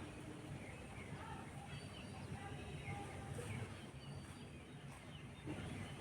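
Small birds chirping, with many short calls scattered throughout, over a low steady background rumble.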